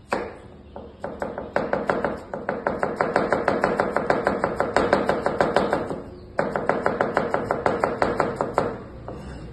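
Chef's knife rapidly slicing an onion on a plastic cutting board: quick, even knife strikes, about six or seven a second, with a brief pause about six seconds in.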